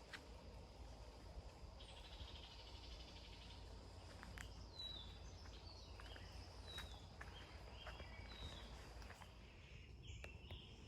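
Faint woodland ambience: a bird calling with short falling whistled notes, repeated several times through the middle, after a brief buzzy trill about two seconds in. Under it run a steady high insect hum and a low rumble.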